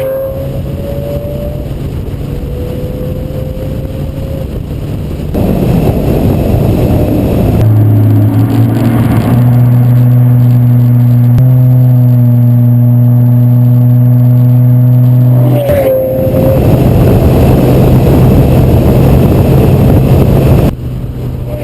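Twin-turbo Lamborghini Gallardo V10 running in a run of cut-together driving clips: a quieter stretch of engine and road noise, a louder one from about five seconds in, then a steady held engine note for about eight seconds, and loud road and engine noise again after that.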